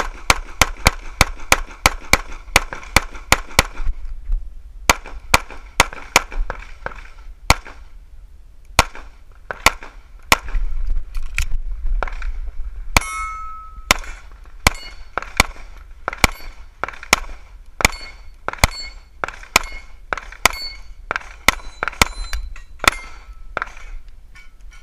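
Pistol fired in fast strings of shots, in quick pairs and groups with short pauses between. In the second half some hits are followed by a short metallic ring from steel plate targets.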